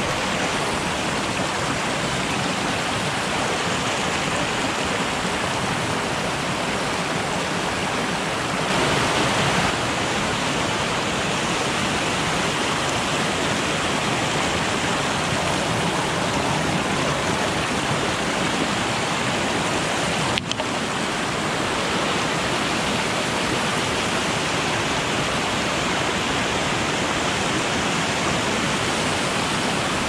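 Creek water rushing steadily, a little louder for about a second some nine seconds in. A single sharp click about twenty seconds in.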